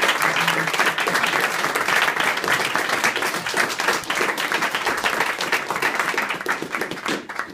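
A small group of people applauding, many hands clapping at once, steady throughout.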